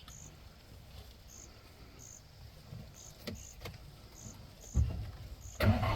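An insect chirping in short high notes, about once a second, over quiet bush background. A loud low rushing noise starts near the end.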